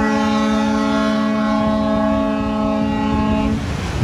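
Ship's horn sounding a long, steady multi-tone blast that cuts off about three and a half seconds in.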